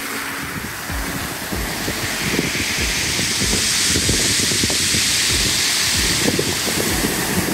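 Waves washing up a pebble beach, the surf hissing over the shingle and swelling to its loudest from about two seconds in to about six seconds before easing. Wind gusts buffet the microphone underneath.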